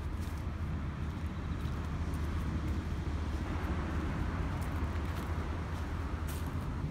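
Steady low rumble of outdoor background noise, with a few faint scattered clicks.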